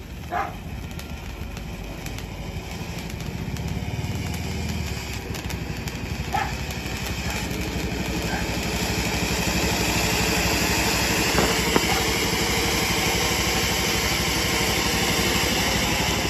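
Golden Fortune ground fountain firework spraying sparks with a steady hiss that grows louder through the first ten seconds or so as the jet builds up, then holds, with a few faint crackles.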